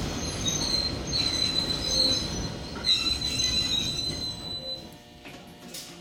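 Electric train of the Toyama Chihō Railway slowing to a stop, a high, steady squeal from the wheels and brakes over the low running rumble. Squeal and rumble die away about five seconds in as the train halts.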